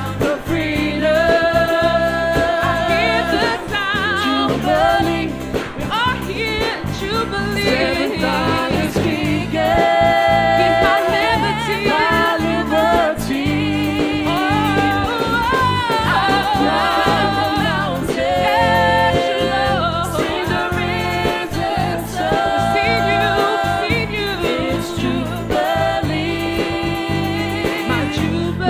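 Gospel choir singing with band accompaniment, the voices holding long notes with vibrato over a steady beat.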